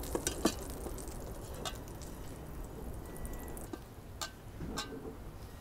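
A few sharp clinks and knocks of a metal spoon and a steel bowl of cooked taco meat being handled and scooped: two near the start, one a little later, and two more near the end.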